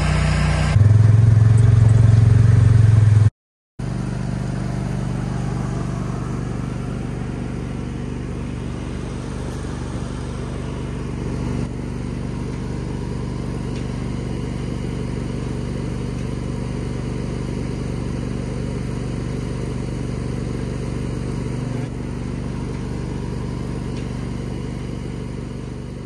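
An engine running steadily at one speed, a constant low hum. It is louder for the first three seconds, cuts out briefly, then carries on evenly and fades away near the end.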